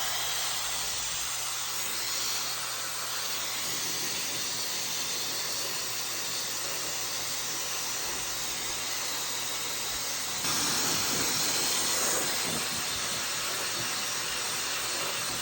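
Hair dryer with a 1400-watt brushless motor running: a steady rush of blown air over a faint motor hum. About two-thirds of the way through it gets louder and higher for a couple of seconds, then settles back.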